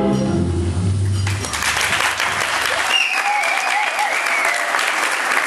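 Tango music ends on a held low note in the first second and a half, then a small audience claps. About three seconds in, a long, high, wavering cheer rises over the clapping.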